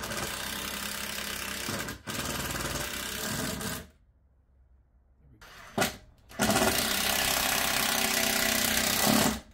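Cordless drill driving screws through a metal TV wall-mount plate into a wooden board, in runs: two of about two seconds, a pause, a short blip, then a longer, louder run of about three seconds as the screw seats.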